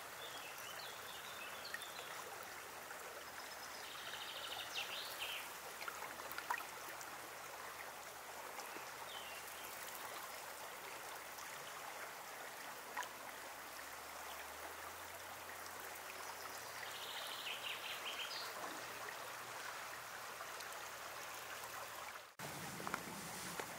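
Steady rushing of flowing river water. Twice, a short run of high, quickly repeated chirps rises above it, and the sound cuts out for an instant near the end.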